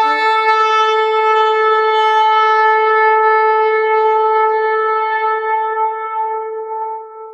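One long horn blast held on a single steady note, tailing off near the end.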